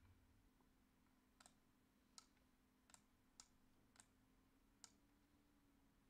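Faint, sharp computer mouse clicks, six of them at uneven spacing, over near-silent room tone with a faint low hum.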